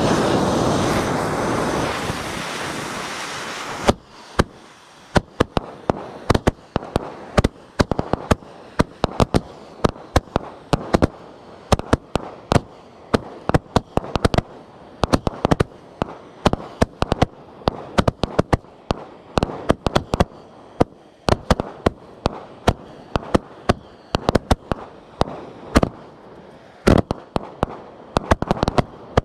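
Consumer firework cakes fired together: a loud hissing rush for the first four seconds or so, then a long irregular string of sharp bangs, several a second, as the shots fire from the tubes.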